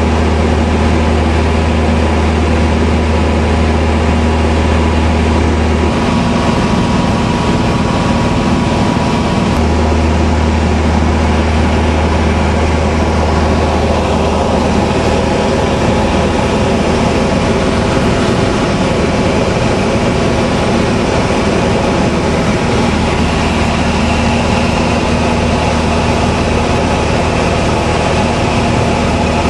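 Light aircraft's piston engine and propeller droning steadily in flight, heard from inside the cabin. Its deepest hum drops out for a few seconds about six seconds in, then returns.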